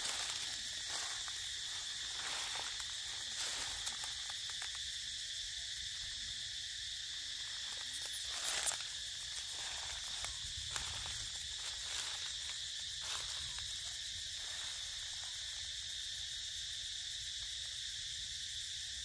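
Steady high-pitched drone of a forest insect chorus, with scattered soft rustles and clicks. A brief, louder rustle comes about halfway through.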